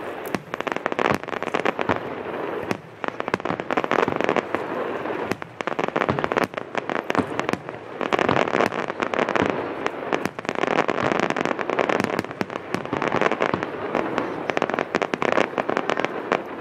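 Aerial fireworks shells bursting in a near-continuous barrage: many sharp bangs and pops overlapping with dense crackling throughout.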